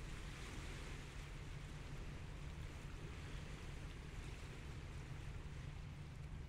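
Small waves washing onto the shore, swelling about half a second in and again around four seconds, over a steady low rumble.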